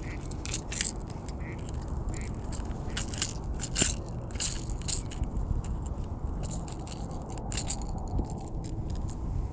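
Close handling noises of a landed pike and fishing gear in a kayak: an irregular string of scrapes, clicks and knocks over a steady low rumble, with one sharper knock about four seconds in.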